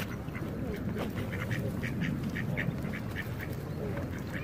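Ducks quacking, a quick series of short calls repeated about three times a second through the middle, over a steady low outdoor background.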